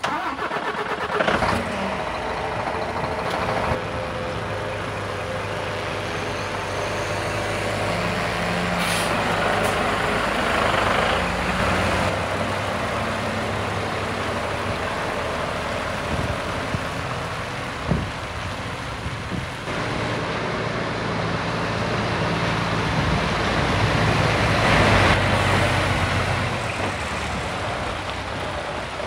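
Scania R420 truck's six-cylinder diesel engine idling steadily, with a few brief hisses.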